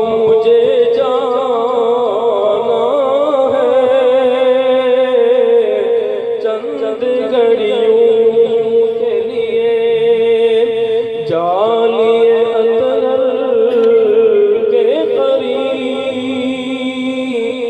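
A singer performing a naat, an Urdu devotional poem, in long wavering, ornamented melodic lines over a steady drone, with a sweeping rise about eleven seconds in.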